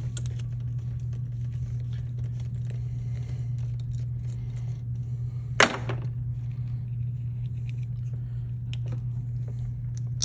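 Light clicks and handling noises of a screwdriver and hands taking a wire loose from an in-line fuse holder, with one sharper click a little past halfway, over a steady low hum.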